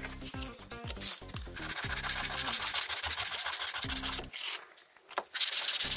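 Sandpaper being rubbed by hand over a deer-antler knife handle, polishing it: a dry rasping rub in two spells with a short pause just before the end, over background music.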